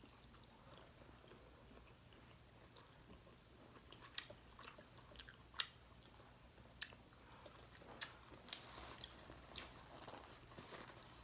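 Faint eating sounds close to the microphone: chewing with scattered short, sharp clicks and crunches, starting about four seconds in.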